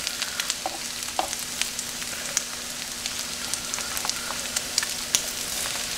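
Eggs, hash browns and bacon sizzling on a Farberware 20-inch electric nonstick griddle: a steady hiss with scattered pops and crackles, as a spatula works under the hash browns.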